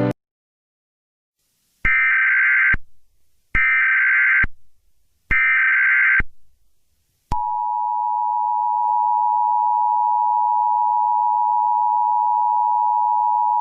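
Emergency Alert System SAME header: three bursts of screeching digital data tone, each about a second long, starting about two seconds in. About seven seconds in, the steady two-tone EAS attention signal begins and holds.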